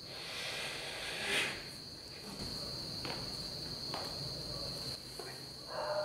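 Night insects chirring in a steady high-pitched drone, with hands rubbing and pressing over skin and cloth during a back massage: a swish about a second in and two faint clicks near the middle.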